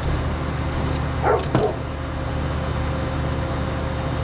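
Steady hum of the forge's electric air blower. About a second and a half in come two short, high yelps.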